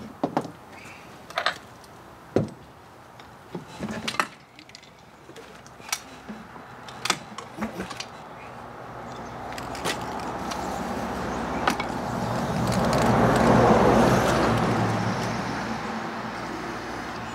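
Scattered sharp metal clicks and clinks of hand work on an outboard motor. About halfway through, a passing motor vehicle slowly swells up, is loudest near the end, then fades.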